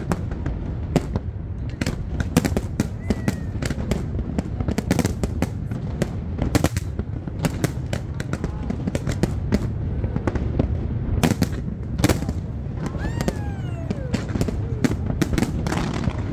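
Aerial fireworks bursting: many sharp bangs and cracks in quick, irregular succession over a steady low rumble.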